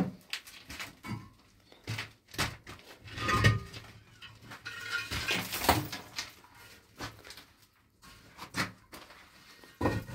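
Irregular knocks and clattering, as of objects being handled and set down, in a small room.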